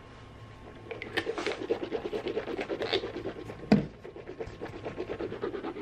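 Mouth rinsing with Listerine mouthwash: a rapid, uneven wet bubbling and sloshing that starts about a second in, with one sharp knock partway through.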